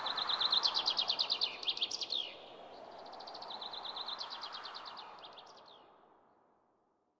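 A songbird singing two fast trilled phrases of high notes, each ending in a few down-slurred notes, over a soft hiss. The second phrase is quieter, and the sound fades out near the end.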